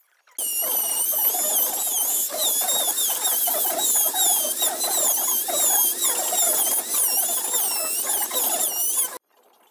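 Handheld rotary carving tool with a burr grinding into wood: a high whine that wavers up and down in pitch as the burr bites, over a gritty grinding. It starts abruptly about half a second in and cuts off abruptly near the end.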